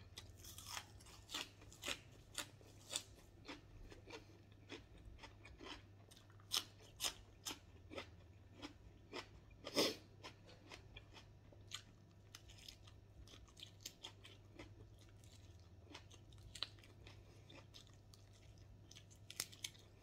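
A man chewing crunchy food close to the microphone, starting with a bite of raw green onion stalks: sharp, irregular crunches every second or so among softer chewing, the loudest about ten seconds in.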